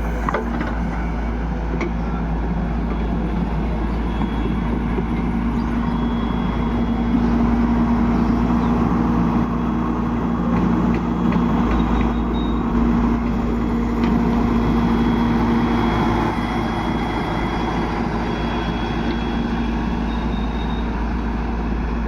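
Excavator diesel engine running steadily, a little louder between about seven and sixteen seconds in.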